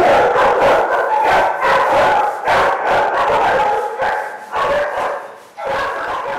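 Shelter dogs barking over one another in a chain-link kennel row, loud and without a break, easing off briefly about five and a half seconds in.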